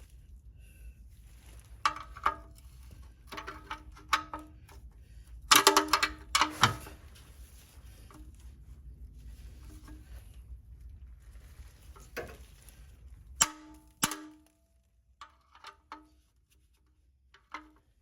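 Metal parts and tools clinking and clanking with short ringing tones while the automatic transmission's oil pan is fitted, the loudest run of clanks about five to seven seconds in. A low steady hum under it stops about two thirds of the way through.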